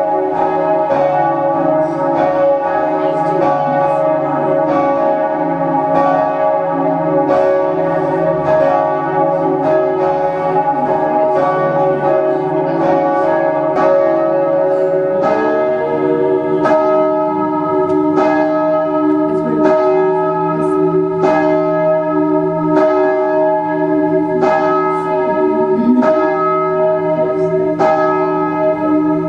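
The Swan Bells' ring of tower bells being rung by bellringers, one bell striking after another so their tones overlap in a continuous, loud peal. The mix of pitches changes about halfway through as the order of the bells shifts.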